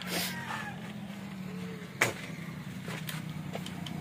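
A steady low engine hum runs underneath. Over it come a few handling clicks and ticks, with one sharp click about halfway through.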